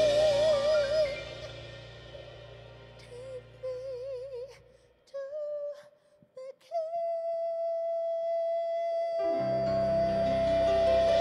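Female solo singer holding a note with vibrato over the worship band, which then drops out after about a second; she sings short unaccompanied phrases without words, then holds one long, steady higher note as the band comes back in near the end.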